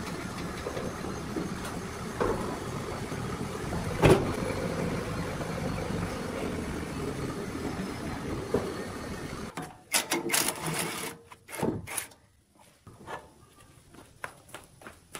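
Forklift engine running steadily, with one loud clunk about four seconds in. Partway through, the engine noise gives way to a series of sharp metal knocks and clanks as parts of an old woodworking machine are handled.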